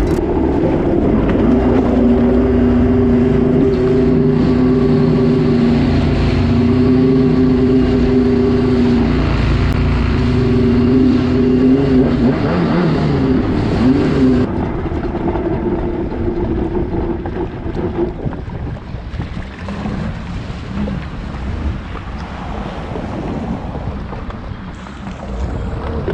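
Stand-up jet ski engine running at a steady high speed with water rushing past. About halfway through the engine note wavers and drops back, and it dies away about two-thirds through, leaving the sound of splashing water as the ski slows.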